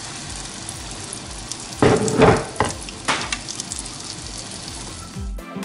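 Banana pancake batter frying in browned margarine in a non-stick pan: a steady sizzle, with a few louder noises about two and three seconds in.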